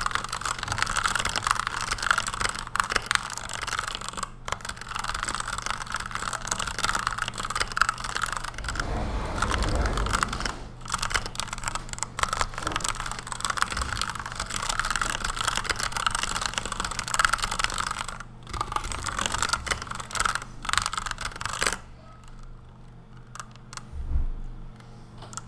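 Fast touch typing on a Redragon Kumara K552 mechanical keyboard with lubed Outemu Red linear switches: a dense, unbroken clatter of keystrokes that stops about 22 seconds in, followed by a single low thump near the end.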